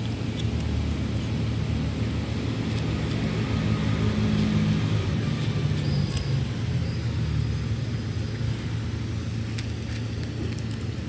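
A steady low motor rumble, its pitch shifting briefly around the middle, with a few faint clicks of a cat crunching dry kibble.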